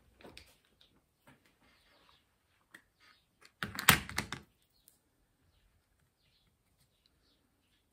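A plastic makeup compact being handled and set down on a table mat, a short cluster of clicks and knocks about four seconds in, with light handling rustles before it.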